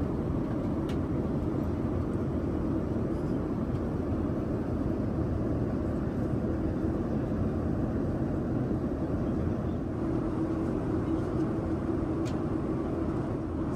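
Airliner cabin noise: a steady low rush of engine and airflow with a constant hum, and a couple of faint clicks.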